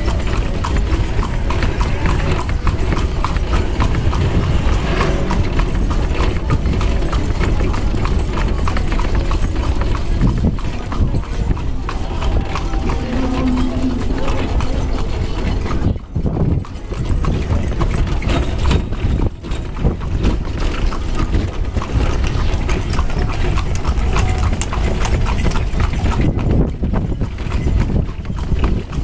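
Hooves of a carriage horse clip-clopping steadily on a paved street, over a steady low rumble.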